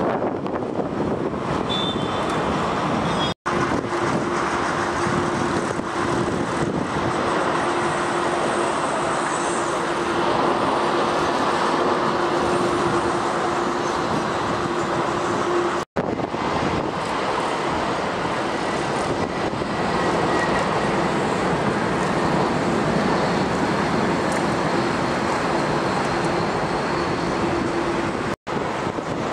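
Jet airliners landing and rolling out on the runway: a steady, distant engine and rolling noise with a low hum through parts of it, broken by three brief gaps where the sound cuts out.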